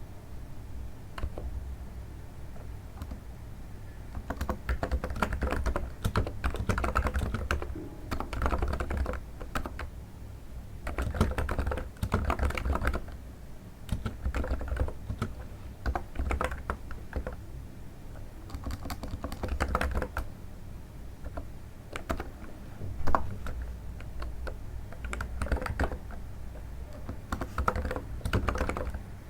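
Typing on a NiZ electrostatic capacitive keyboard, its soft, muted keystrokes likened to the crunch of stepping on snow. The typing comes in bursts of several seconds with short pauses between them, and one noticeably louder keystroke comes near the end.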